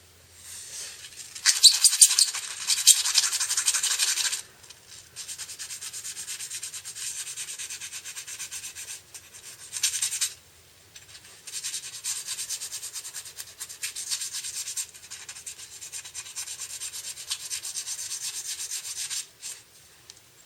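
Brisk scrubbing with rapid back-and-forth strokes, in several runs of a few seconds with short pauses; the first run, about a second and a half in, is the loudest.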